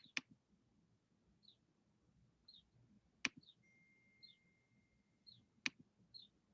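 Near silence, broken by a few sharp clicks: two at the start, one about three seconds in and one near the end. Faint short high chirps come about once a second, and a faint steady high tone sounds for about two seconds in the middle.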